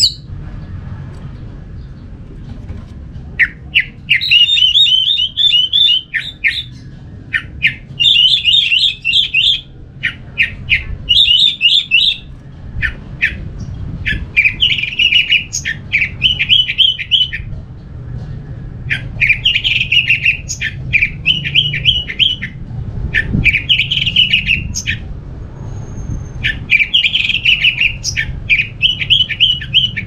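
Orange-headed thrush singing: a run of rapid, trilled phrases, each a second or two long, with short pauses between them, starting a few seconds in.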